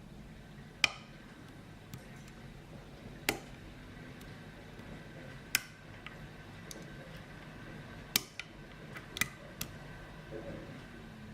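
Lock picking in a 5-pin Ruko pin-tumbler lock: about nine sharp, separate metallic clicks and ticks at uneven intervals as the pick works the pins against tension.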